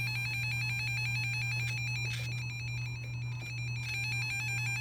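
RadioShack 12-250 weather radio's alert siren sounding in test mode: a shrill electronic tone pulsing rapidly on and off, over a steady low hum. It sounds a little weird, a sign of the old radio's speaker sounding off.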